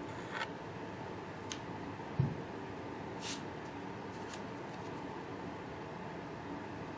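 A few short clicks and scrapes of Fournier 2818 plastic playing cards being drawn from a spread on a felt table, with one soft thump about two seconds in. A steady background hiss runs underneath.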